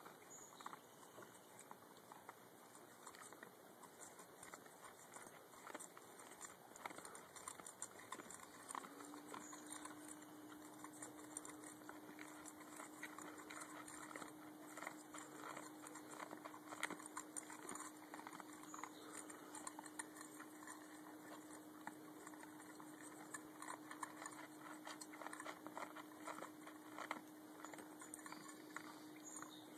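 Two dogs eating dry kibble from their bowls: faint, scattered crunching of the food and small clicks of it against the bowls. A steady low hum comes in about a third of the way through and holds.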